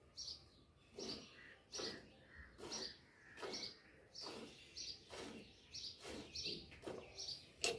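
A cow being milked by hand into a steel bucket: short squirts of milk hitting the milk in the pail, one or two a second in a steady rhythm. A single sharp tap near the end.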